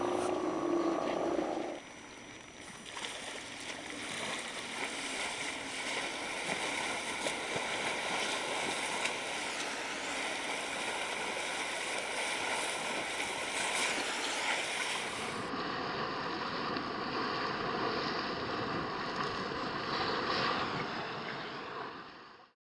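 Steady rush of water and wind on open water. In the first couple of seconds a low, croaking call from Steller sea lions carries on, then stops.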